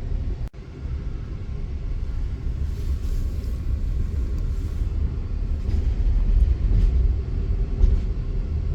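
Amtrak Auto Train passenger train running steadily at speed: a continuous low noise of the moving train. The sound cuts out for an instant about half a second in.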